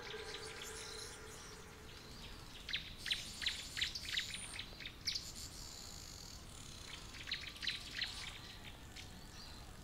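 Ambient birdsong: birds giving short, sharp chirps in two busy runs a few seconds apart, over a faint steady high insect hum. A low held tone fades out in the first second or so.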